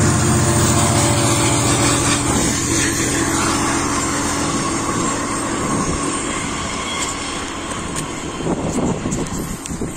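Israel Railways red double-deck passenger train going past on the tracks: a loud, steady hum over rail noise, slowly fading toward the end.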